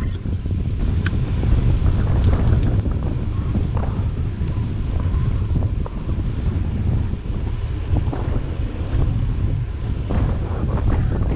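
Wind buffeting the microphone of a camera on a moving bicycle: a steady, fluctuating low rumble.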